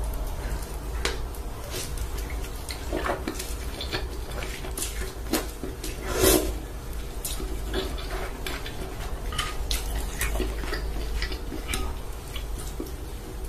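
Close-miked ASMR eating sounds: wet slurps of noodles in broth and chewing, with chopsticks clicking against a glass dish. The loudest slurp comes about six seconds in, over a steady low hum.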